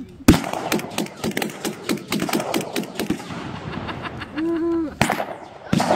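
Blank gunfire from Second World War re-enactors' weapons: a rapid, uneven string of sharp shots for about three seconds, then a few single shots near the end.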